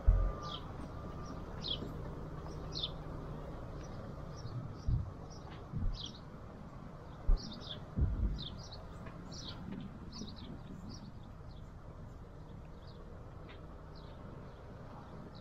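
A small bird chirping over and over in short, quick, falling notes, roughly one or two a second. A few dull low thumps come in between, the loudest at around seven and eight seconds in.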